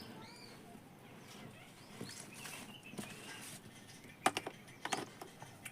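Faint clicks and handling noises from test-lamp leads being fixed onto a ceiling fan motor's winding wires, with a couple of sharper clicks near the end. Faint chirping in the background early on.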